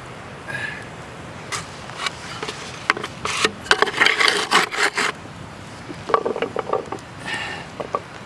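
Wood being handled against wood and stone: a wooden cutting board and picnic basket scraping and knocking, with a busy run of scraping about four seconds in.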